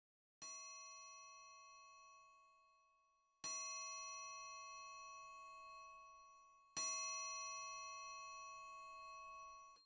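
A bell-like metal tone is struck three times, about three seconds apart, each strike ringing on and slowly fading. The last ring is cut off suddenly near the end.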